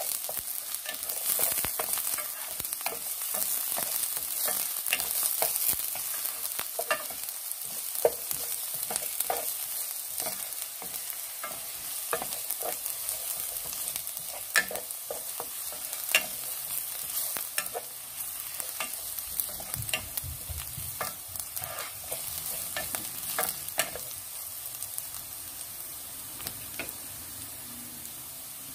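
Chopped garlic sizzling in hot oil in a pot while a wooden spatula stirs it, with many sharp taps and scrapes of the spatula against the pot. The taps thin out and the sizzle eases a little toward the end.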